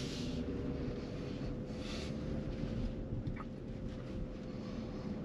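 Cabin noise inside a BMW iX3 electric SUV rolling slowly: a steady low road rumble with a faint steady hum and soft swells of hiss.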